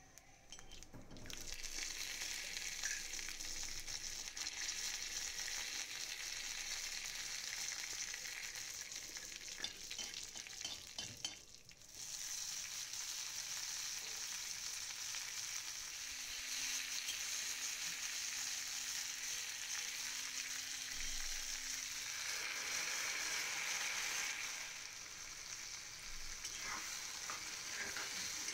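Hot oil sizzling in a cast-iron kadai as a tempering of split lentils and dried red chillies fries, with a steel spatula stirring and scraping the pan. The sizzle breaks off briefly near the middle and comes back louder.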